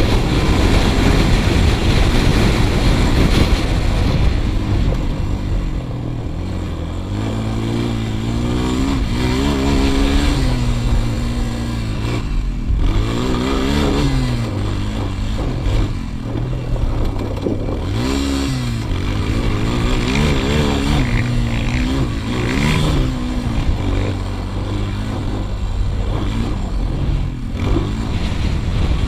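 2008 Suzuki LTZ 250 quad's four-stroke engine under load, rising and falling in pitch again and again as the rider accelerates, shifts and backs off around the motocross track. A steady rushing noise runs underneath.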